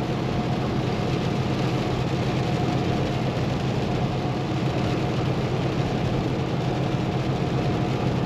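Steady cab-interior drone of a Kenworth T680 semi truck at highway speed: the Paccar MX13 inline-six diesel's low, even hum mixed with a constant wash of tyre and road noise.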